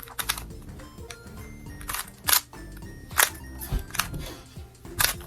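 Plastic Rubik's cube being turned by hand, its layers snapping round in irregular clicks, over background music.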